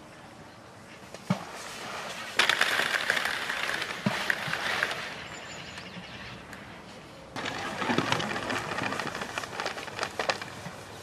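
Balls of groundbait being thrown by hand into a fishing swim, with a few short dull plops as they land in the water. Patches of rustling handling noise are the loudest sound, about two seconds in and again about seven seconds in.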